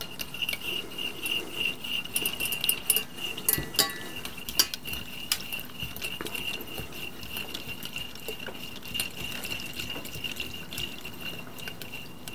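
A coil whisk stirring butter cubes into liquid in a stainless-steel saucepan, with irregular clinks and scrapes against the pan. A steady high whine from the induction hob runs underneath.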